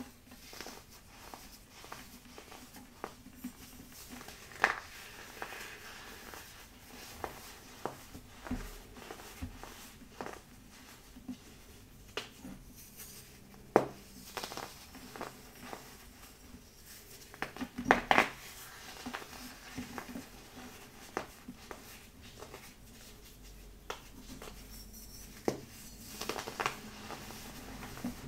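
A molded cup of pressed baking soda being crushed and crumbled between the fingers: irregular crunches and crackles, with a few louder snaps, about four in all.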